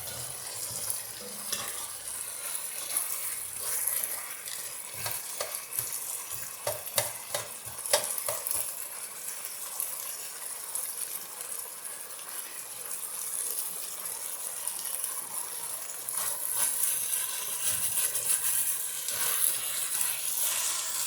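Seasoned oxtails sizzling as they sear in bacon grease in a pot, a steady frying hiss. A utensil stirring them clicks and scrapes against the pot, mostly in a cluster around the middle, with one louder knock.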